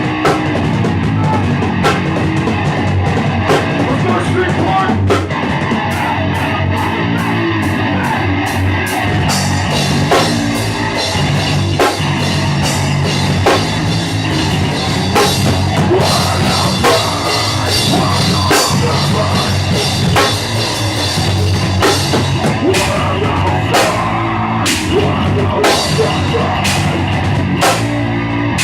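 Rock band playing a heavy song: a driving drum kit with crashing cymbals over guitar and bass.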